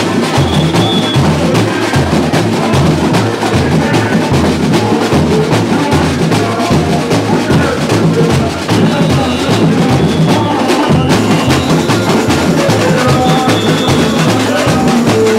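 Samba school bateria playing a samba beat: surdo bass drums pulsing steadily under dense, fast snare and repinique drumming.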